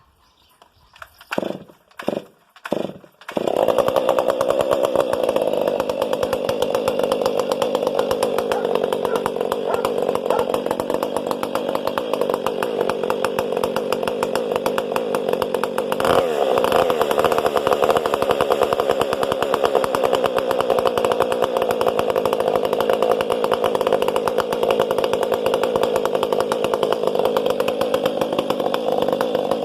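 Stihl MS500i fuel-injected two-stroke chainsaw with an Egan Straight Shot straight-through muffler being started: a few short bursts as it is pulled over, then it catches a little over three seconds in and runs steadily with a loud, open exhaust. There is a brief sharp sound about halfway through.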